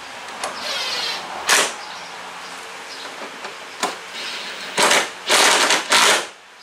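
A driving tool fastening the headlight's Torx screws, running in short bursts of rapid clicking, with three loud bursts near the end and a couple of sharp clicks before them.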